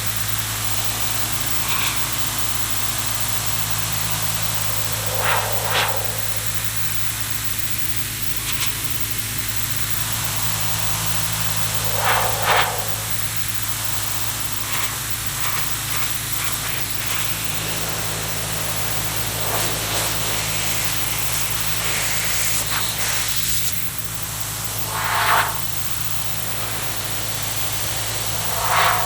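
Pressure washer running steadily, its spray hissing against the car body, with a steady low hum from the machine underneath. A few short, loud sounds break over it now and then, two of them in quick pairs.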